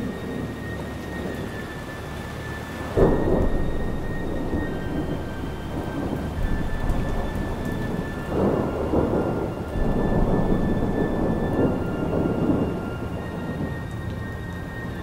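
Thunderstorm: a sudden thunderclap about three seconds in that rolls into rumbling, then more rolling thunder over steady rain in the second half, with a few faint steady high tones held underneath.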